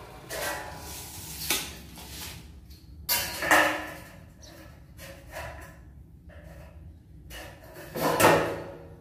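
Light-gauge steel framing channels being handled and shifted on a concrete floor: a series of short metallic scrapes and knocks, the loudest about three and a half seconds in and again near the end.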